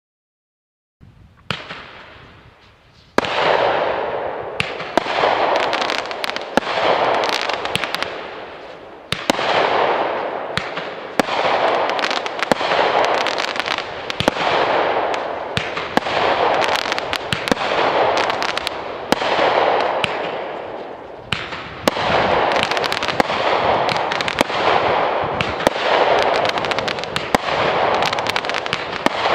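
A 36-shot consumer fireworks cake firing shot after shot, a new shot about every one and a half to two seconds, each launch followed by its bursting stars and a spell of crackling. It begins faintly about a second in, and the shots turn loud about three seconds in.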